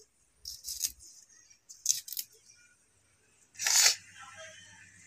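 Knife slicing through small striped melons, a few short crisp cuts, the loudest about four seconds in. A low steady hum starts alongside that last cut.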